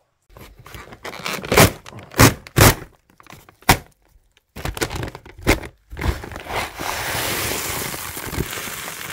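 A 10 kg sack of pigeon feed being opened and handled: several sharp knocks and thuds, then from about seven seconds in a steady rustling of the sack and its contents.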